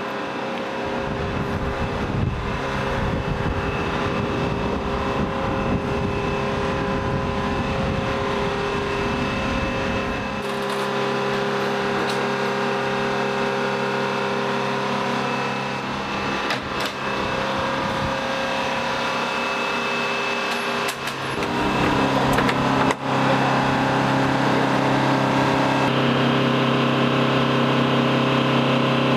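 Steady machinery hum and whine of running aircraft or airfield ground-support equipment, with several held tones over a low rumble. The sound shifts abruptly about ten seconds in and again just past twenty seconds, getting louder the second time, with a few short clicks in between.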